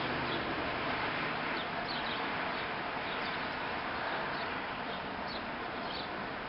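Steady cab noise of a truck rolling slowly with its engine low, heard from inside the cab, with short high chirps every second or so.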